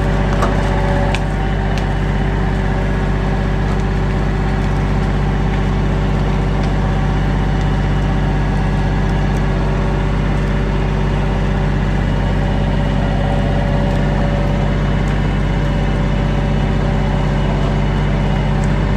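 An engine running steadily at idle, an even low hum that holds unchanged throughout.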